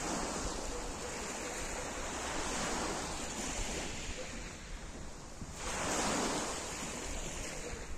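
Small sea waves breaking and washing up a pebble beach, as a steady wash of surf that swells twice: once right at the start and again about six seconds in.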